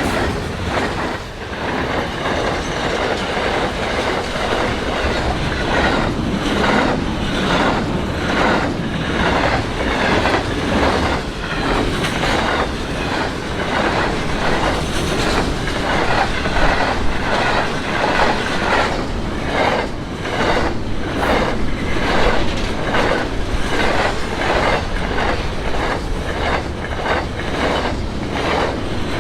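A train rolling past, its wheels clacking in a steady rhythm over the rail joints along with the continuous rumble of the wagons.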